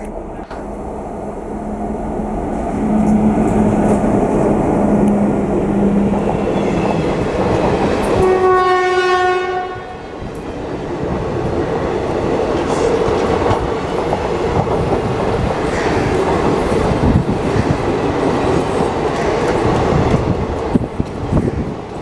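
Indian Railways WAP-class electric locomotive passing with its train, its rumble building as it nears. About eight seconds in it sounds one horn blast of about a second and a half at a steady pitch. Then the passenger coaches run by, wheels clattering over the rail joints.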